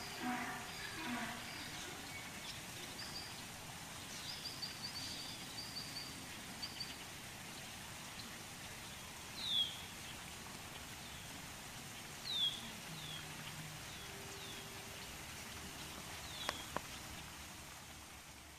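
Open-country ambience: a steady faint hiss with small birds calling high and thin, first a quick run of short chirps, then several single short calls that sweep downward, the loudest about a third of the way in and again near the middle. A faint sharp click comes near the end.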